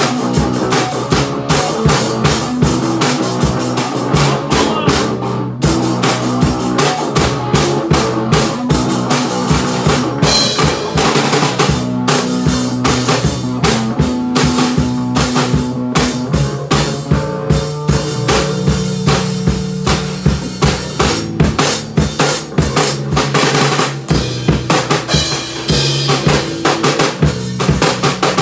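Band playing live together: a drum kit struck hard with many rapid kick, snare and cymbal hits, under electric bass and guitar notes.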